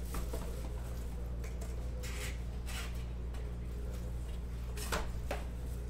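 Plastic shrink-wrap being pulled off a cardboard trading-card hobby box and the box handled. A few short crinkles and scrapes, the sharpest near the end, over a steady low hum.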